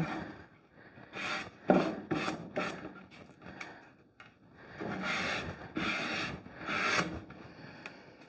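Excess wallpaper being torn away along the sanded edges of a wooden drawer front, with hand rubbing against the paper and wood. The sound comes as separate strokes: about four short ones in the first three seconds, then a few longer ones a little past the middle.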